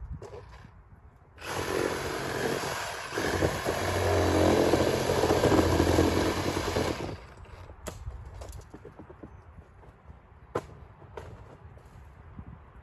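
Chainsaw running and cutting for about five and a half seconds, starting about a second and a half in, getting louder toward the middle and cutting off suddenly. A few light knocks and clicks follow.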